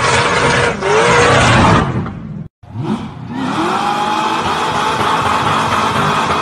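Muscle car engines revving with tyres squealing in burnouts. The first car's wheelspin cuts off suddenly about two and a half seconds in. A second car then revs up and settles into a steady burnout.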